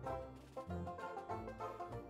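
Background music: a plucked-string tune of quick short notes over a bass line.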